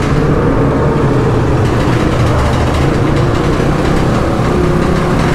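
Dirt bike and supermoto engines running steadily inside a concrete tunnel, the rider's own bike and the bikes of the group around him.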